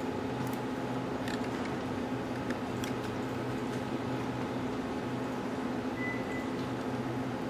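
Steady low hum and hiss of computer equipment running, with a few faint clicks and a brief high tone about six seconds in.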